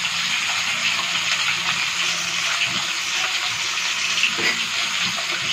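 Pieces of rohu fish frying in very hot oil in a kadhai over a high flame: a steady sizzle with small crackles.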